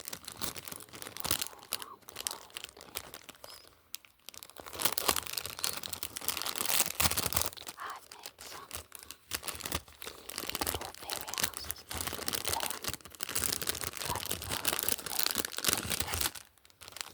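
Packaging being crinkled and torn open by hand, a dense run of irregular crackles and rips that grows busier after about four seconds and stops just before the end.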